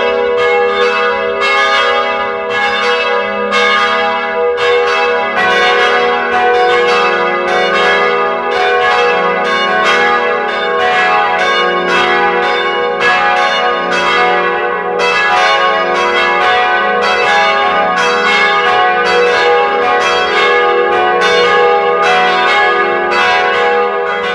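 Church bells ringing a continuous peal: strike follows strike about twice a second, each ringing on under the next.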